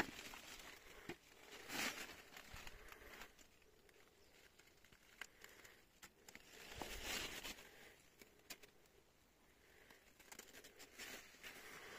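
Faint rustling and crinkling, in three soft swells with a few light clicks between them.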